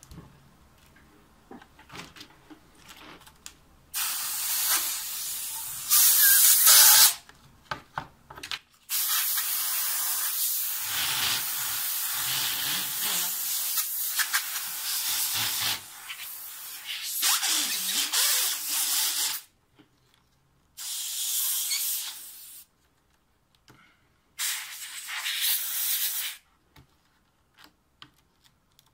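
Compressed-air blow gun blasting air in a run of hissing bursts over a keyboard's membrane and circuit sheets. The bursts start about four seconds in and last from one to about seven seconds, with short pauses between. The air is blowing out dirt and drying the water-damaged keyboard.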